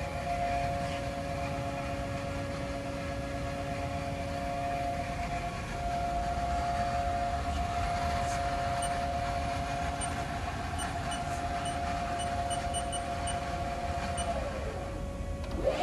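Haas TL-3 CNC lathe spindle turning its chuck at about 500 RPM: a steady whine over a low machine hum. Near the end the whine stops and slides down in pitch.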